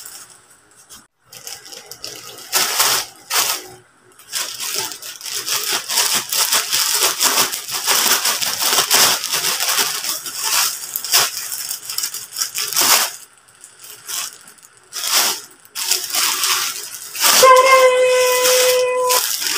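Plastic courier pouch crinkling and rustling as it is handled and cut open with scissors: a dense run of crackles and small snips. Near the end, a steady held tone for about a second and a half.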